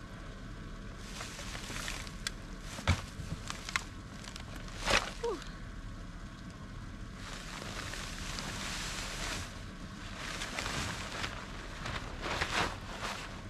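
Footsteps in snow and the rustle of bags and clothing as gear is shifted in a plastic sled, with a few sharp knocks about three and five seconds in.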